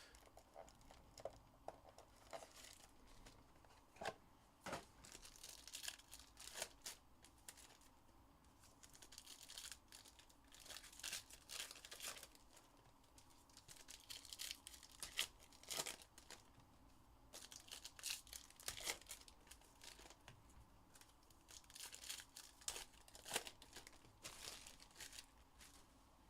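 Trading-card pack wrappers being torn open and crinkled by hand, faint, in scattered short bursts.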